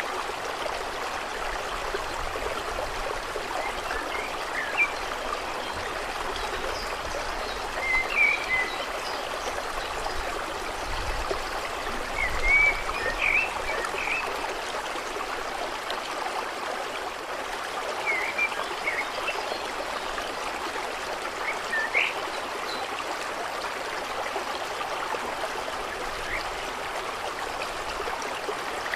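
Steady trickling, flowing water at a lake's edge, with short bird chirps dotted through it every few seconds.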